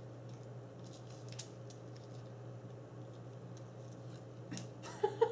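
Light clicks and taps of plastic diamond-painting butterfly pendants and a thin metal ball chain being handled, scattered and sparse, with a louder clack near the end, over a steady low hum.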